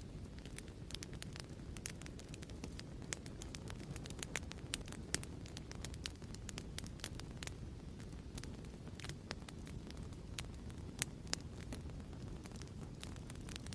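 Crackling wood fire: a soft steady rumble with irregular sharp pops and snaps, several of them louder than the rest.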